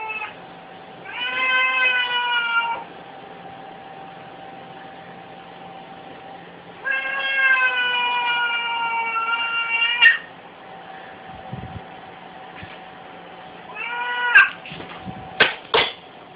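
Two domestic cats yowling at each other in a standoff: long drawn-out caterwauls, two lasting a couple of seconds or more and a shorter one near the end, each slightly falling in pitch. Right after, two short sharp sounds as the cats clash.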